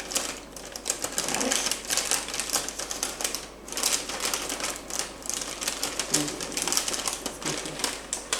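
Dry cornflakes being handled: a dense, continuous crackling and rattling of many tiny clicks, with short lulls.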